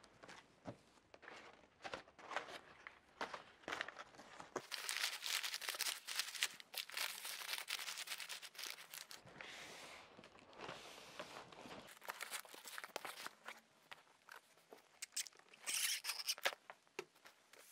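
Sheets of recycled paper void fill (X-pad) being crumpled and pushed into a cardboard box, crinkling and rustling in irregular bursts, with cardboard flaps being handled. The paper is packed into the box's empty space to immobilize the product inside.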